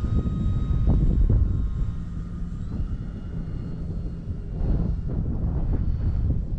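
Brushless electric motor and propeller of an E-flite Cherokee RC plane running under power in a go-around: a thin whine that steps up and down in pitch a few times. Heavy wind buffeting on the microphone runs underneath.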